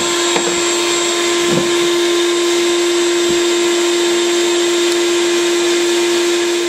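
A bee vacuum's motor runs steadily with a constant hum and hiss, sucking honey bees through the hose. The suction is turned down at the bleed valve so the bees go in without being hurt.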